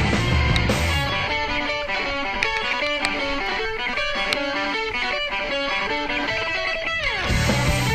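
Background rock music. About a second in the bass and drums drop out, leaving an electric guitar picking a melody. Near the end a slide down brings the full band back in.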